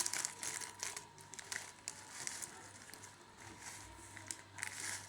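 Plastic snack packet crinkling as it is handled, in irregular crisp rustles, louder at the start and again near the end.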